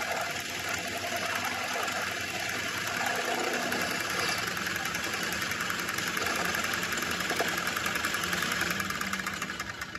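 Lathe running with a steady mechanical whir and a fast, even rattle, dying down near the end.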